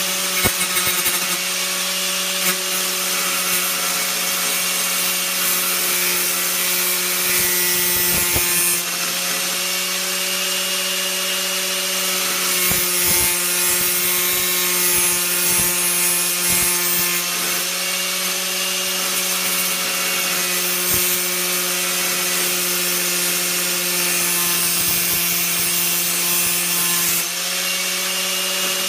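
Hyper Tough angle grinder with an abrasive cutting wheel running at steady speed and grinding into a thick piece of hardened steel: a steady motor whine under a harsh, hissing grind. The grind shifts slightly a few times as the wheel bites.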